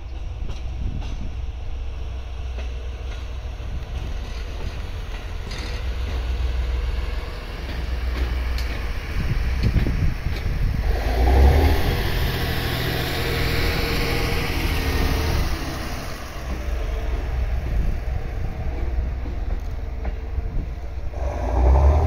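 JR East GV-E400-series diesel-electric railcars passing slowly close by: engine and drive running, with wheels rolling on the rails. The sound swells, loudest as the cars go by about eleven seconds in, and rises again near the end.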